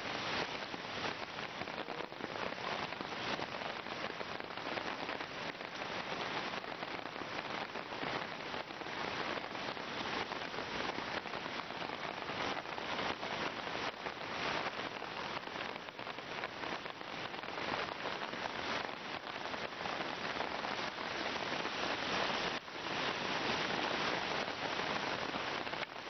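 Steady rain falling and pattering densely on the ground and nearby surfaces, mixed with the rush of a swollen, flooded stream running close by.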